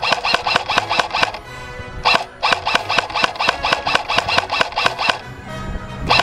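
Airsoft rifle firing on full auto in bursts, about six or seven shots a second, with a short pause about a second in, a single shot about two seconds in, and a longer pause near the end.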